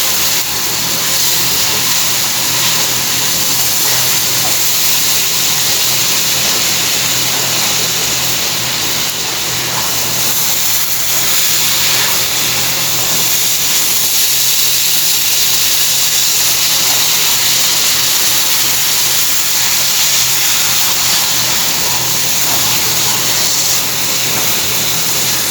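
Steady sizzling hiss from the pan as the semolina, ghee and milk mixture cooks and is stirred.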